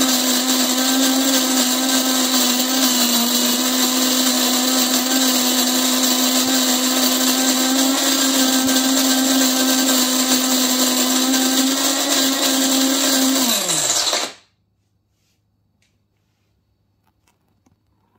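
Cuisinart DBM-8 Supreme Grind burr mill grinding whole coffee beans: a steady electric motor whine with the grinding of beans. About fourteen seconds in the motor winds down, falling in pitch, and stops, leaving a few faint clicks near the end.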